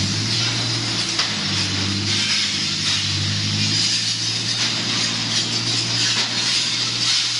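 Machinery running steadily: a low, even hum with a high hiss over it.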